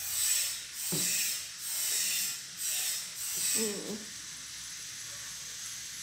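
Eating sounds as rice is mixed by hand on a metal plate and chewed: a run of soft, noisy, wet bursts about every two-thirds of a second, with a short hum near the middle, then only a faint steady hiss for the last two seconds.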